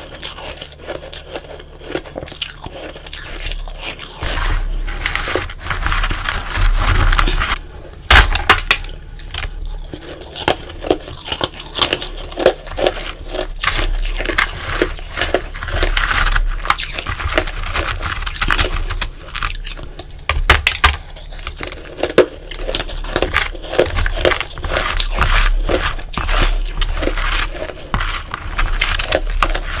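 Close-miked crunching and crackling of ice, powdery frost and small ice cubes, with fingers scraping through the frost in a plastic tub. Dense crackle throughout, with a few sharp cracks about 8 and 20 seconds in.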